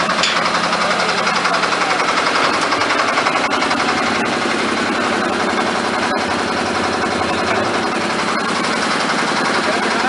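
A concrete mixer's engine running steadily with a rapid, even beat.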